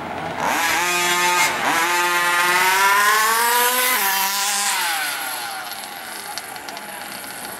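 Small two-stroke petrol engine of a large-scale gas-powered RC car accelerating hard, its pitch climbing with a short dip about a second and a half in, then dropping and fading away as the car backs off or moves off.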